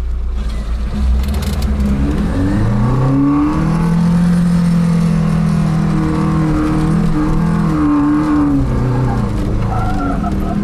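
Lada Niva's tuned 1.9-litre, 120 hp engine pulling hard in second gear, low range, up a steep sand hill, heard from inside the cabin. The revs climb over the first few seconds, hold high, then waver and dip near the end.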